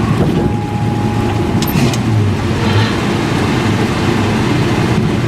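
1963 Chevrolet C30 one-ton truck's engine running steadily as the truck drives along, heard from inside the cab. A faint thin whine is heard briefly about half a second in, and a short click comes near two seconds in.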